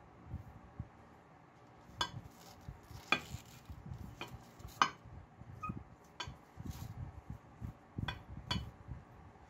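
A bristle brush works paint stripper onto a black lacquered metal lamp arm held over a glass baking dish, with about seven irregular sharp clinks of the metal and brush against the glass, one of them briefly ringing.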